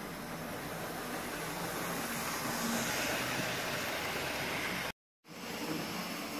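Hornby OO-gauge model trains running: a steady electric motor whir with wheel noise on the track, growing louder about two to three seconds in as a train passes close by. The sound drops out completely for a moment about five seconds in.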